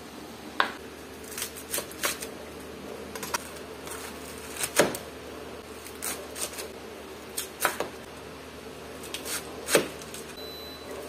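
Large kitchen knife cutting saba bananas and cabbage on a wooden cutting board. The blade hits the board in irregular sharp knocks, some single and some in quick pairs or threes.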